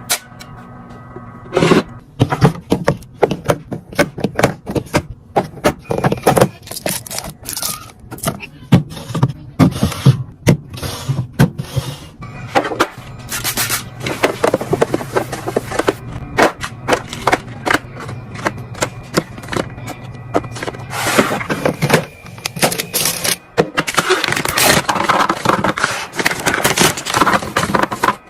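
Many quick taps, knocks and scrapes of food containers and packaging being handled and set down while restocking a fridge. There are stretches of steady rustling in the second half.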